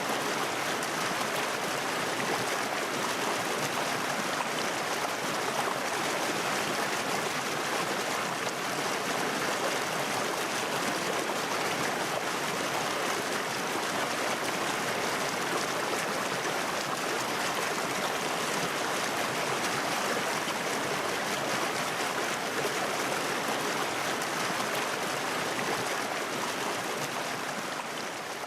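Water running in a stream, a steady, even flow with no breaks.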